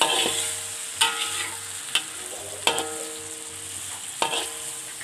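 Dried anchovies (ikan bilis) sizzling in hot oil in a wok while a metal spatula stirs them. The spatula clanks against the wok about five times, each clank ringing briefly over the steady sizzle.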